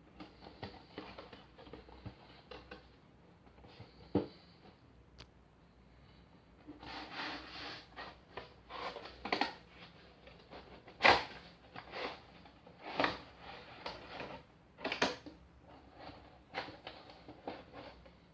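Nendoroid figure packaging being handled and opened: irregular rustling with light clicks and knocks. There is a sharp knock about four seconds in, and the loudest knock comes about eleven seconds in, during a busier stretch of handling.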